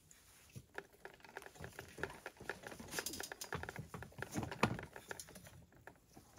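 Crankcase splitter's threaded screw being turned by its T-handle against the crankshaft of a Husqvarna 395 XP, giving a rapid, irregular run of small clicks and creaks as the crankcase halves are forced apart. The clicking pauses briefly near the end.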